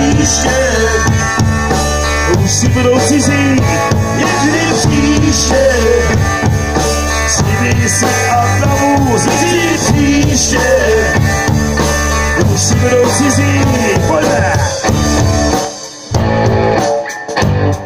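Live band playing amplified rock music: electric guitar, bass and drums with a singing voice over a steady beat. The music breaks off briefly twice near the end and comes straight back in.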